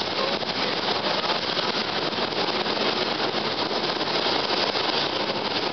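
Steady running noise of a moving streetcar, an even noise with no single event standing out.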